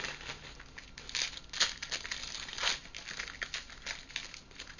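Crinkling and rustling of hockey trading cards and their foil pack wrappers being handled, in a run of short irregular bursts.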